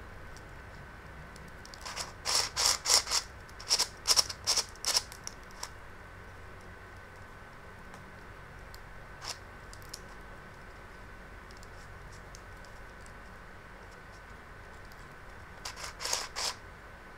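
Plastic twisty puzzle cube being turned by hand: runs of sharp plastic clicks as its layers are twisted. A quick burst of about a dozen comes about two seconds in, then a couple of single clicks in the middle, and another short run near the end.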